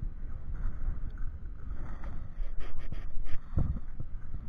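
Wind buffeting the microphone, a steady low rumble. A few light clicks come past the middle, and a dull knock comes about three and a half seconds in.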